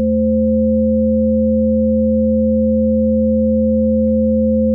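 Ring-modulated sine tones from a Pure Data patch: a 220 Hz sine carrier multiplied by a 300 Hz sine modulator with a signal offset of 1. The result is a steady, unchanging chord of the 220 Hz carrier plus its 80 Hz and 520 Hz sidebands.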